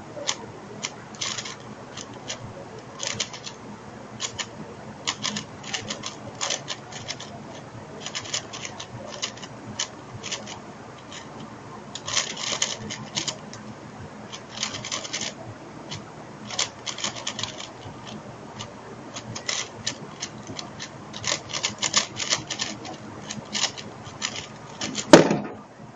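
4x4 speed cube being turned rapidly: flurries of clattering plastic clicks as the layers are twisted, with short pauses between runs of moves. A sharp knock about a second before the end.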